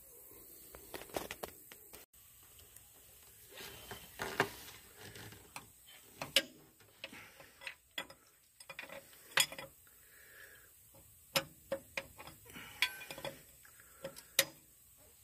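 Scattered metallic clicks and clinks of hand tools working on the fuel primer pump of an excavator, as the old pump is being loosened with a wrench.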